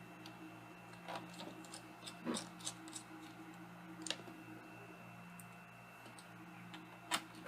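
Scattered light clicks and taps of a Phillips screwdriver and plastic laptop bezel parts being handled while the last screws and screw covers go in. One louder click comes near the end.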